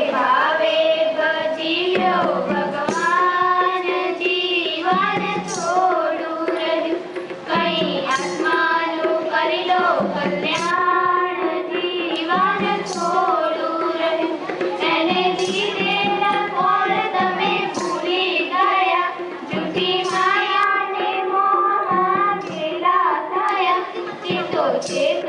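A group of young girls singing a devotional bhajan together into a microphone, in melodic phrases over a steady drone note held underneath.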